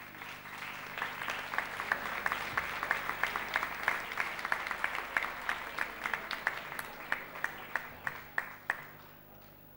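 Audience applause: many people clapping together, thinning to a few scattered separate claps and dying away about nine seconds in.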